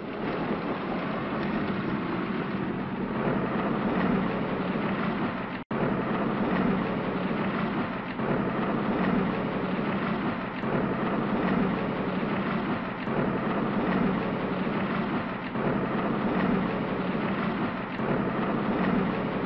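A steady, even rumbling noise with no clear rhythm or tone, broken off for an instant about six seconds in.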